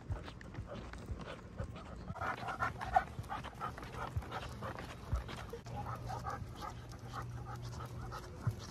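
Small dogs panting on a leashed walk, with a few sharp taps; the loudest comes about three seconds in.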